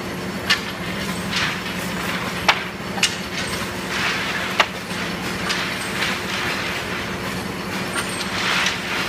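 Steady hum of factory machinery, with sharp clacks of wooden stick handles knocking together several times and some scraping rustle as a bundle of sticks is tied by hand.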